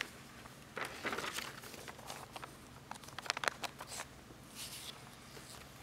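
Sheets of paper rustling and crinkling as they are handled and turned at a pulpit microphone, in a few short bursts: about a second in, around three seconds, and near the end.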